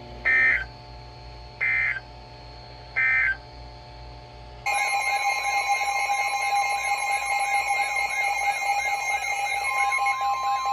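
Emergency Alert System data tones: three short buzzy digital bursts about a second and a half apart, the end-of-message code of a weather warning broadcast. About four and a half seconds in, a loud warbling alert tone starts and keeps going, with a steady tone joining near the end.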